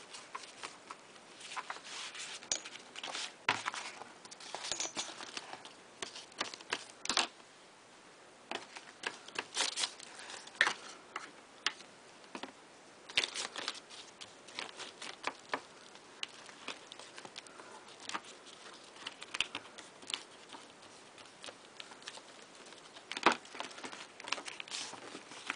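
Painted paper and card being handled, folded over a cardboard edge and pressed down on a tabletop: irregular rustling and crinkling with small sharp taps, the loudest tap near the end.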